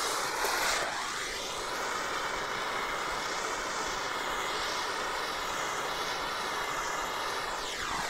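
Propane torch flame burning with a steady hiss while it scorches the face of a wooden sign.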